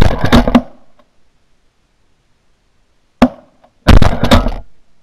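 Shotgun blasts: a quick cluster of overlapping shots at the start, a single sharp shot a little after three seconds in, and another cluster of shots just before four seconds, each dying away within about half a second.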